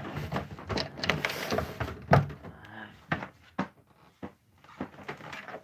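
Irregular knocks, clunks and scraping from a large television set being handled and turned around, with one louder knock about two seconds in.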